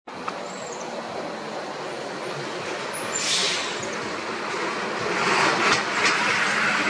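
A road vehicle's engine running steadily, growing louder about five seconds in as it comes closer, with a brief hiss about three seconds in.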